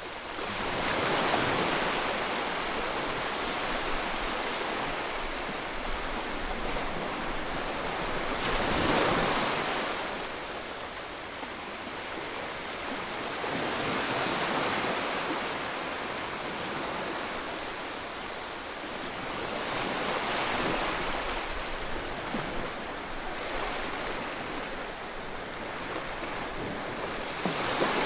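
Sea waves breaking and washing in. A rushing noise swells and fades as each wave comes in, about every five to seven seconds.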